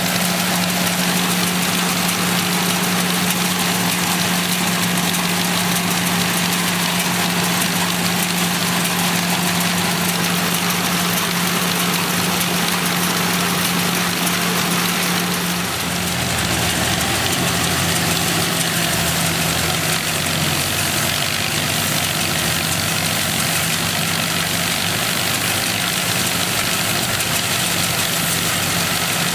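1931 Gleaner combine's Ford Model A engine running steadily, driving the combine's machinery, with a steady mechanical hum. The hum steps slightly lower in pitch about halfway through.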